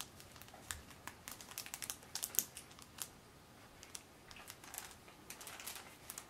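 Faint, irregular light clicks and crinkling from hands handling small items, an enamel pin on its cardboard backing card.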